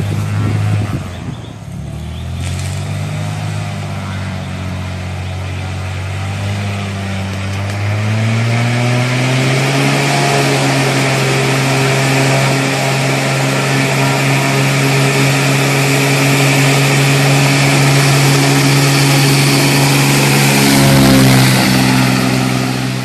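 Single-engine Cessna's piston engine and propeller at takeoff power, the pitch stepping up about eight seconds in as the engine comes to full power. It then runs steady and grows louder as the plane rolls closer, passing by near the end with a slight drop in pitch.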